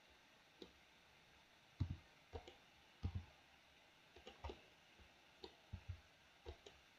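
Faint computer mouse and keyboard clicks: about fifteen short, irregular clicks, some in quick pairs, against near silence.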